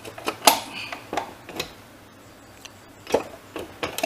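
Metal clinks and knocks as the rear drum-brake panel with new brake shoes of a Yamaha FZ V2.0 motorcycle is seated by hand into the wheel's brake drum: a handful of sharp, irregular clicks, with a pause of about a second midway.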